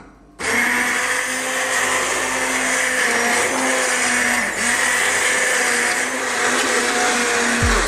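Hand-held immersion blender switching on about half a second in and running steadily as it purées soft boiled vegetables in chicken stock, a steady motor hum under a churning whir, then stopping just before the end.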